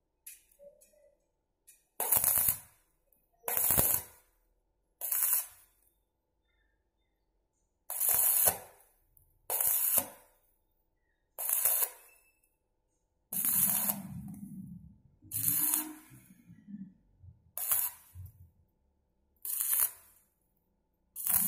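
Stick (arc) welder crackling in short bursts on a steel bicycle frame: about eleven welds of under a second each, with pauses of a second or two between them.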